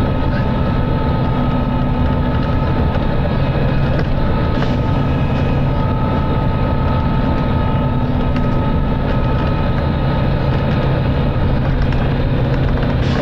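Volvo B9TL double-decker bus's six-cylinder diesel engine working hard at a steady speed, heard from inside the bus, with a steady whine above the engine note.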